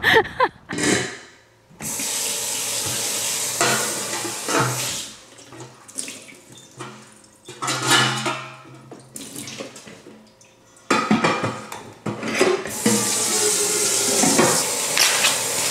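Kitchen tap running into a sink, with pots and dishes clattering. The water runs from about two seconds in for a couple of seconds, and again near the end.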